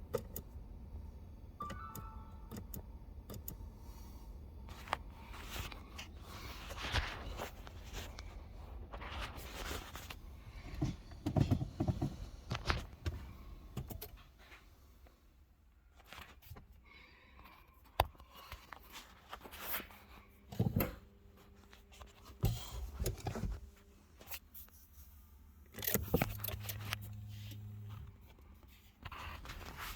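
Car keys jangling and clicking as they are handled, with scattered knocks and rattles. Near the end a steady low hum lasts about two seconds.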